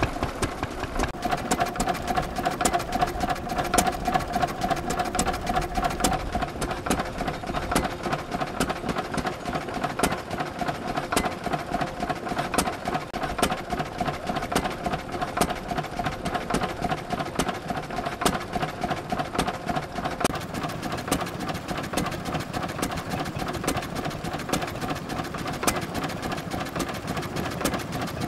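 Vintage Lister stationary engine running steadily, with a quick, regular beat of firing strokes.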